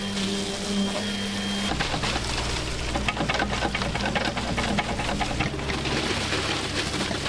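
A small excavator's engine running while wet concrete slides off its bucket into wooden formwork. From about two seconds in there is a dense, rapid patter and rattle of gravelly concrete pouring and dropping.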